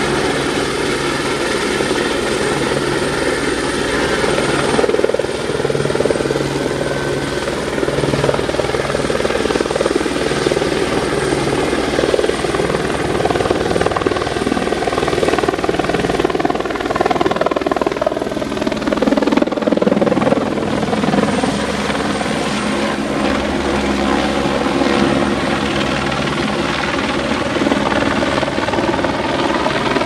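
Helicopter hovering overhead while carrying a load on a long sling line: a steady, loud rotor and engine sound whose pitch dips and comes back up a little past the middle.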